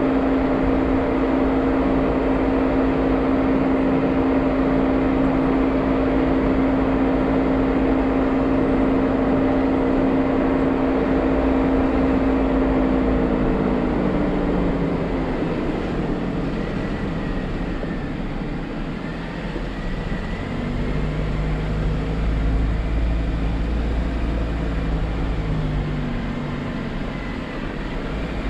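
Jeep Wrangler driving on a dirt trail: a steady engine and drivetrain hum that drops in pitch and fades about halfway through as the Jeep slows. Later a lower engine note comes in with a deep rumble.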